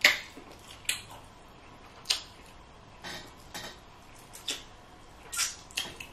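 Eating noises from a seafood boil: a string of irregular short, sharp clicks and cracks, about eight in six seconds, the loudest right at the start.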